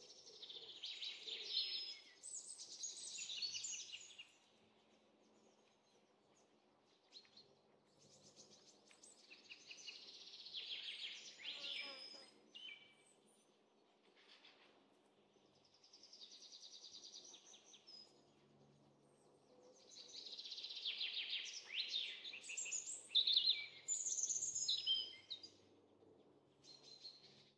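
Songbirds singing in bursts of high, rapid chirps and trills a few seconds long, with quiet pauses between them; the loudest phrases come near the end.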